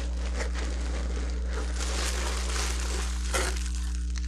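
Plastic bubble wrap and packing material crinkling and crackling as it is handled and pulled out of a cardboard box, with a steady low electrical hum underneath.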